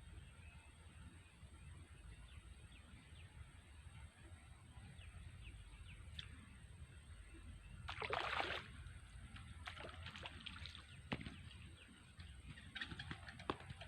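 A short splash of water about eight seconds in, over a steady low outdoor rumble, followed by a few scattered clicks and taps.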